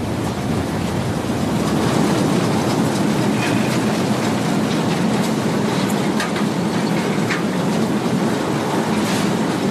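Hungarian MÁV class 424 steam locomotive running at speed, heard from its cab: a steady rush of wheel, steam and wind noise that swells over the first couple of seconds, with a few short clicks from the rails.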